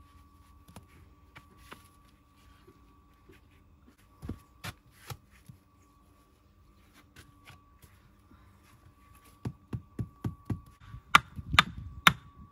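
Sharp knocks of a masonry tool striking stone. A few scattered knocks come about four seconds in, then a quick run of louder strikes in the last three seconds.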